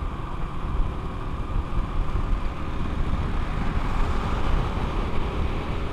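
Motorcycle riding at road speed: its engine runs steadily under a heavy rush of wind on the microphone, with passing traffic in the background.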